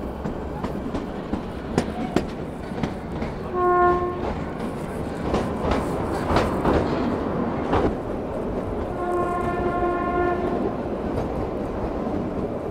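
Kalka–Shimla narrow-gauge toy train running, heard from a coach window: a steady rumble with sharp clicks of wheels over rail joints. The diesel locomotive's horn sounds twice, a short blast a few seconds in and a longer one of about a second and a half later on.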